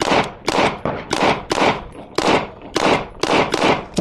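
Pistol fired in a steady string of shots, about two a second, each a sharp crack with a short echo. The even spacing is the same cadence on every shot that the range officer remarks on.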